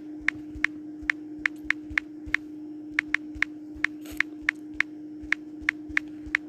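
Smartphone on-screen keyboard key clicks as text is typed, short sharp taps at uneven spacing, about three a second, over a steady low hum.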